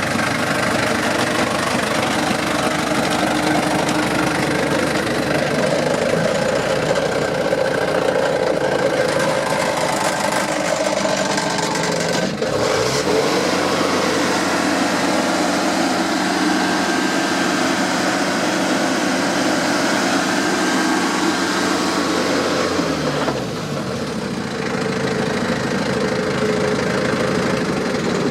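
The Vermeer BC1000XL wood chipper's 3.3-litre Cummins four-cylinder diesel running steadily. Its revs rise about twelve seconds in, hold, and fall back about ten seconds later.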